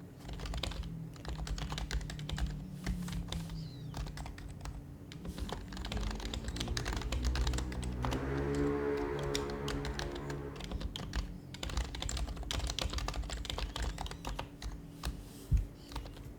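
Fast, continuous typing on an HHKB Professional HYBRID Type-S keyboard, its silenced Topre switches giving soft, dense keystroke clicks. A pitched droning sound rises under the typing for a couple of seconds near the middle, and one sharper knock comes near the end.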